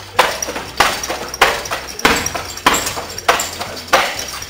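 Roundhouse kicks slamming into a long heavy punching bag in a fast series: seven hard thuds, about one every two-thirds of a second, each echoing briefly in the room.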